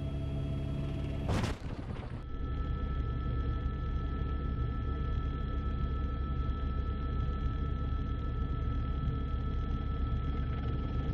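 Steady low drone of an aircraft engine heard from inside the cockpit in flight, with a thin high whine over it. It comes in after a brief burst of noise about a second and a half in, where a different steady drone is cut off.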